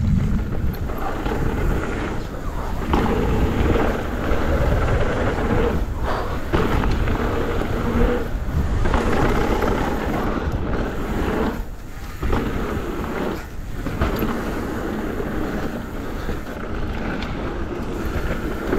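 Wind rushing over the microphone and the rumble of a downhill mountain bike's tyres rolling fast over a dirt trail, dipping briefly several times.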